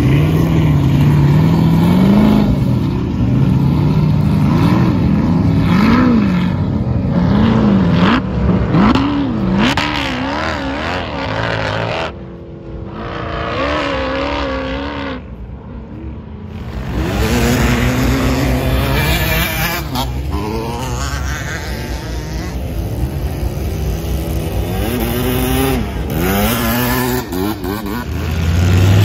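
Engines of off-road sand cars and UTVs, with a dirt bike near the end, revving and accelerating across sand dunes. Their pitch sweeps up and down again and again as the throttles are worked. The sound drops to a quieter, more distant engine for a few seconds around the middle, then gets louder again near the end.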